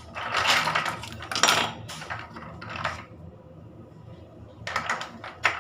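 Clinking and clattering of small hard objects being handled, in a rattling cluster over the first two seconds and a few quick clicks near the end.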